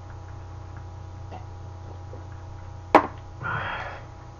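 A drinking glass is set down hard on the table with one sharp knock about three seconds in. A short rasping noise follows half a second later, over a steady low room hum.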